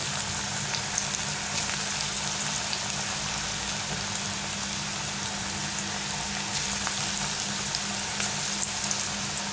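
Spoonfuls of chickpea-and-cashew pakoda batter deep-frying in hot oil on a low flame: a steady sizzle with small scattered crackles.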